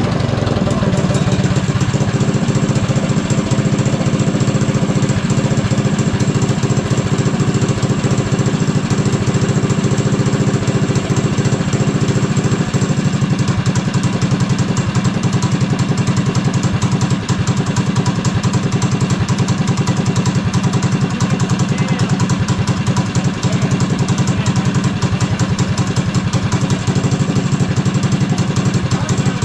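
Drift cart's small go-kart engine idling steadily with a fast, even putter, its revs dropping back to idle right at the start.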